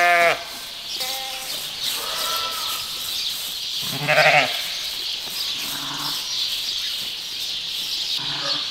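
Sheep bleating: a loud bleat as it begins and another about four seconds in, with fainter bleats from the flock in between, over a steady background hiss.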